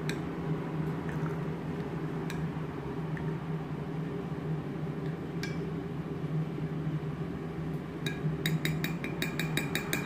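A spoon clinking against a glass, a few single taps, then a quick run of about a dozen ringing clinks near the end, as when stirring a drink. A steady low hum runs underneath.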